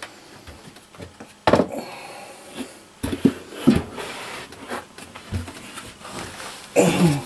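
A lightweight shower stall base being carried and maneuvered into place, with several knocks, bumps and scrapes as it is handled against the wall framing.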